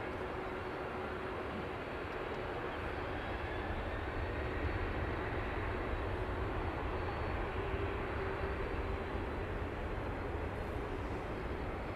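Jet engines of a Boeing 767-300ER at takeoff thrust: a steady rushing noise with a faint steady tone in it, growing slightly louder about four seconds in.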